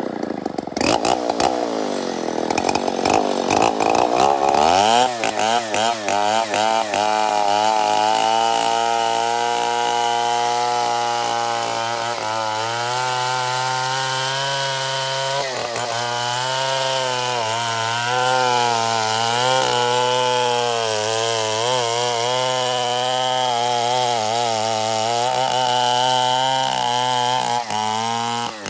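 Stihl 070 chainsaw's big two-stroke engine running at high revs while sawing matoa wood. It is choppy and uneven for the first few seconds, then settles into a sustained cut with the pitch wavering as the chain loads up in the wood. Near the end the engine note falls away abruptly.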